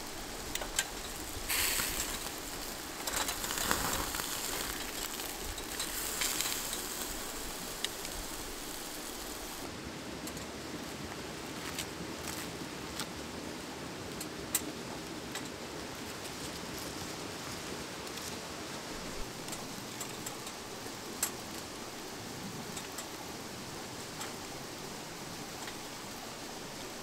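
Steady hiss of a flowing river with scattered small clicks and crackles from a small charcoal grill. Busier crackling and sizzling while a steak cooks on the grill in the first several seconds, then a steadier, quieter hiss from about ten seconds in.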